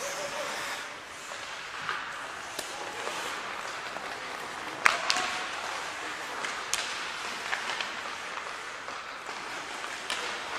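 Ice hockey in play: a few sharp cracks of sticks striking the puck and the puck hitting the boards, the loudest about five seconds in, over the rink's steady background hum of voices.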